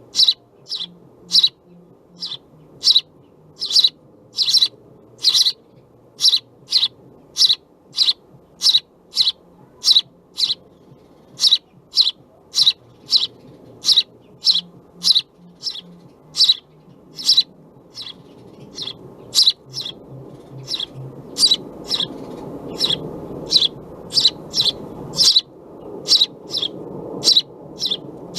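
House sparrow chirping over and over, short sharp cheeps about two a second with only brief pauses. A low background rumble grows louder in the second half.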